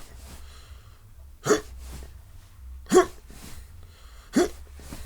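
Hiccups voiced by a ventriloquist for his puppet: three short, sharp hiccups about a second and a half apart, still going after a drink of water failed to stop them.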